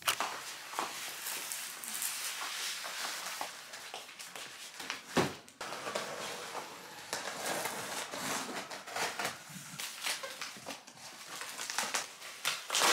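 Unpacking a long cardboard shipping box by hand: plastic wrap crinkling and cardboard rustling and scraping, with many small clicks and one sharp knock about five seconds in.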